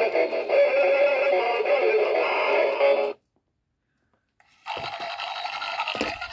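A battery-powered singing toy plays a tinny recorded song, which cuts off abruptly about three seconds in. After a second and a half of silence, another tinny electronic sound starts, with knocks from the toy being handled.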